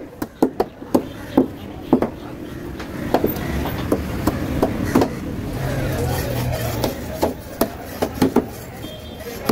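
A large knife chopping through fish flesh and bone into a wooden chopping block: a quick, irregular run of sharp chops, with a short break about halfway through.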